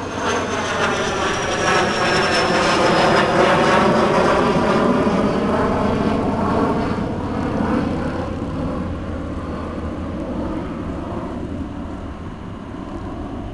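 Cessna Citation X business jet climbing out overhead after takeoff, its twin Rolls-Royce AE 3007C turbofans rushing loudest a few seconds in, with a high whine that slowly falls in pitch. The sound has a swirling, phasing quality, then fades as the jet pulls away.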